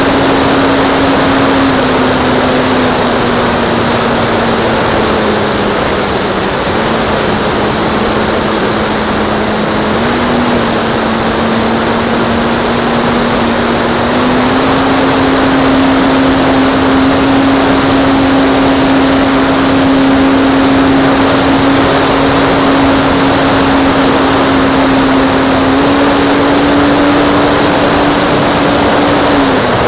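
Radio-controlled model airplane's motor and propeller running steadily, the pitch dipping a little about five seconds in, then climbing back in steps with throttle changes.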